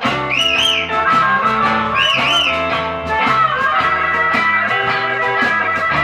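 Blues band playing live, with steady drum beats under sustained chords. A lead line bends and wavers in pitch twice in the first few seconds.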